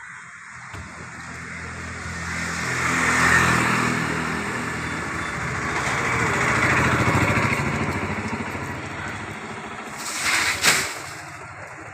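An engine running, growing louder to a peak about three seconds in and again around seven seconds, then fading away. A short, sharp noise sounds near the end.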